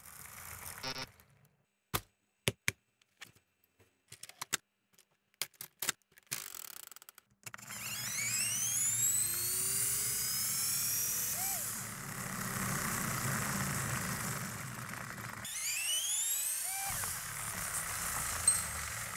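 Lego Technic flywheel vehicle's plastic gears and flywheels: scattered plastic clicks at first, then a steady whirr with rising whines as the flywheels spin up. The whirr breaks off briefly and a second spin-up runs near the end.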